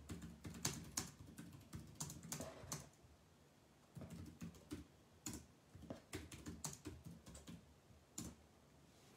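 Typing: irregular runs of light key clicks, with a pause of about a second near the three-second mark, stopping shortly before the end.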